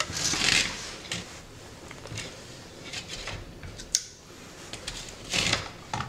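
Handling noise from wire and cable being moved over a tiled workbench: a rustle and scrape near the start, scattered light clicks and taps, and another short rustle near the end.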